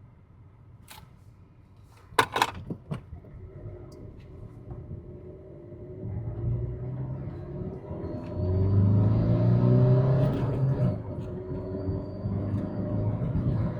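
Car engine accelerating hard, heard from inside the cabin, its pitch climbing and then dropping back and rising again, with a faint steady high whistle from a turbo-whistle attachment on the exhaust tailpipe. A few sharp clicks come before the engine picks up.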